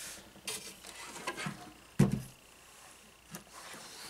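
Light handling noises on a tabletop: soft rustles and a few small knocks, the sharpest about two seconds in, as sewing materials are moved and set down.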